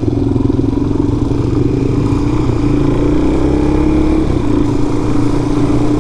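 Motorcycle engine running at a steady cruising speed, its note creeping slowly higher twice with a brief dip about halfway through, over wind and road rumble.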